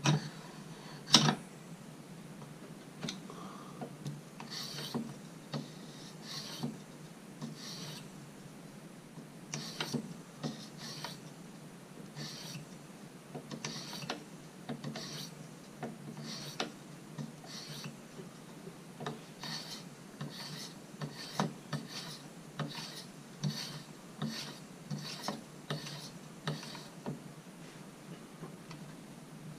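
Fine 7/5 micron (about 4,000 grit) sharpening stone on a TSProf guided sharpener stroked repeatedly across a pocket knife's edge, short rasping strokes about once a second, with a sharp click about a second in. This is the final polishing pass on the bevel, removing very little metal.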